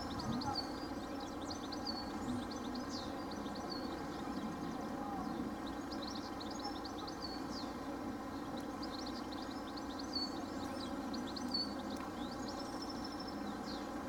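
Level crossing warning alarm sounding continuously as a steady electronic tone while the crossing is closed, with small birds chirping in short phrases over it several times.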